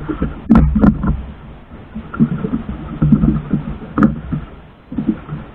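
Rope being hauled in aboard a small outrigger fishing boat: rubbing and handling noise, with three sharp knocks against the boat, about half a second in, just under a second in, and about four seconds in. An uneven low rumble of wind and water on the microphone runs underneath.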